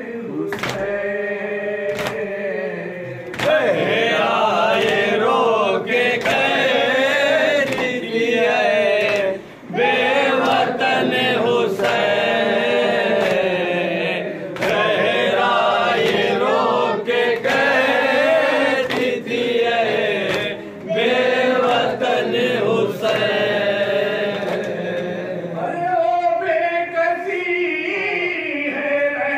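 Shia noha (Muharram lament) chanted by a lead reciter over a microphone, with a group of men and boys chanting with him, rising in volume about three seconds in. Sharp hand slaps of matam (chest-beating) come through at intervals.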